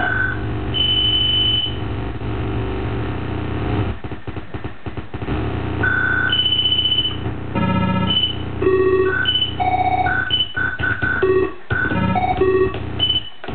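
Home-built chessboard synth, two 4093 NAND-gate oscillator chips fed through a 4040 ripple counter, playing buzzy electronic tones in 8-bit video-game style. The tones jump between fixed pitches, held notes at first and then quick blips with brief cut-outs from about eight seconds in.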